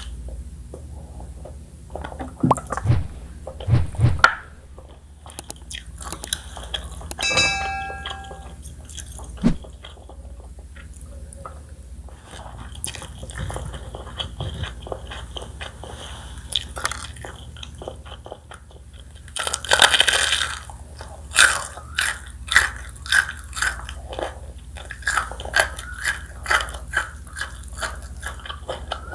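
Close-miked eating of crispy fried chicken: bites and chewing with crunching, with a brief ringing tone about a quarter of the way in. About two-thirds through comes a loud crunching bite, followed by rapid crackly chewing.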